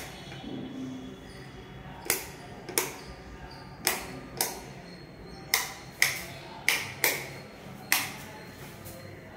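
About ten sharp taps or knocks at irregular intervals, roughly half a second to a second apart. Each has a short ringing tail.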